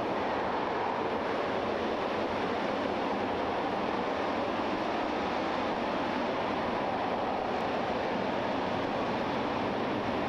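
RS-25 hydrogen-oxygen rocket engine firing at steady thrust: a continuous, even rush of noise that does not change in level.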